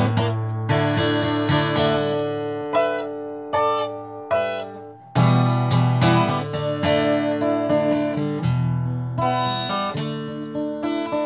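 Acoustic guitar strummed, its chords ringing out between strokes. The playing thins to a few single notes over a fading chord a few seconds in, then a full strum about five seconds in starts it up again.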